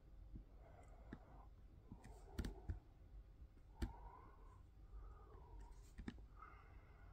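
Scattered sharp clicks from a laptop's controls as a document is scrolled, against quiet room tone; the loudest come about two and a half, four and six seconds in.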